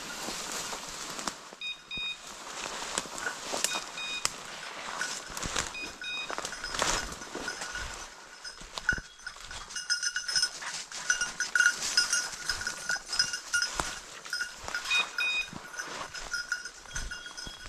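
A hunting dog's bell jingling as the dog works through the scrub, ringing most busily in the second half. Short high electronic beeps from a beeper collar come a few times, and footsteps crunch through brush and dry leaves.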